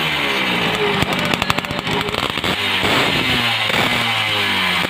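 Honda C70 motorcycle fitted with a Yamaha F1ZR two-stroke engine being revved in repeated blips, its pitch climbing and falling several times.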